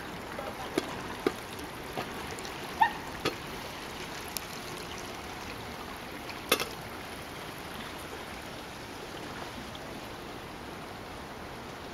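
Small waves lapping steadily on a stony lakeshore, with a few faint clicks scattered through, the sharpest about six and a half seconds in.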